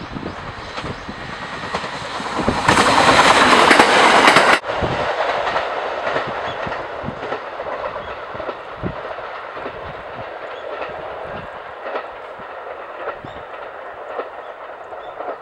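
JR East 701 series electric train passing close by: the run of its wheels and motors builds to a loud peak, cuts off abruptly about four and a half seconds in, then the wheels' clickety-clack over the rail joints fades as the train draws away.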